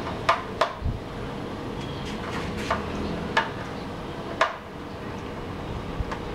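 Scattered small sharp clicks and taps as wires are handled and fitted into the terminal block of an electric instant water heater, the loudest about four and a half seconds in, over a steady background rumble with a faint hum.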